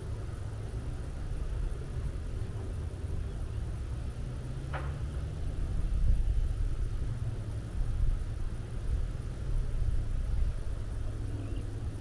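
Wind buffeting the microphone, a low gusting rumble that swells in stronger gusts through the second half. One short, sharp higher sound cuts through about five seconds in.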